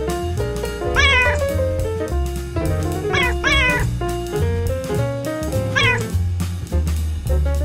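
Background music with a cat meowing over it four times, short rising-then-falling meows about a second in, twice close together around three seconds, and once near six seconds.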